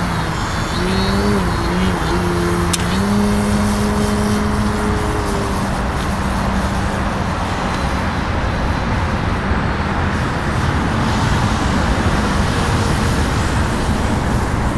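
Radio-controlled Edge 540 aerobatic model plane's motor and propeller buzzing overhead, the tone wavering up and down in pitch with the throttle. After about six seconds the tone fades into a steady, even rushing noise as the plane flies farther off.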